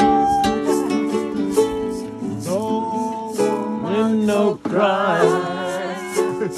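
Live sing-along: a strummed acoustic string instrument keeping a steady strum, with voices singing a melody over it.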